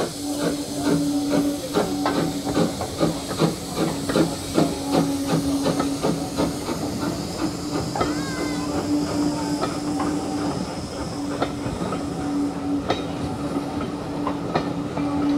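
Terrier tank locomotive No. 72 'Fenchurch' pulling away under steam: a quick, even rhythm of exhaust chuffs over a steady steam hiss. As the locomotive passes, the chuffs give way to sparser clicks of the carriage wheels over the rail joints.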